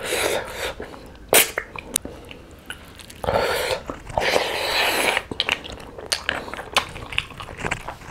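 Close-miked eating sounds: fingers mixing rice and curry with small wet clicks, then a handful of rice pushed into the mouth about three seconds in, followed by wet chewing and smacking, picked up by a lapel microphone.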